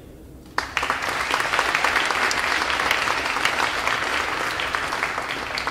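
Audience applauding, breaking out suddenly about half a second in and keeping up steadily.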